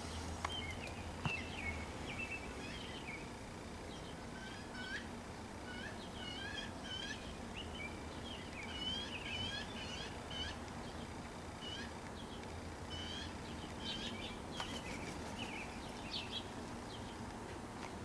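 A small songbird singing, a running series of short, high chirps and quick slurred notes.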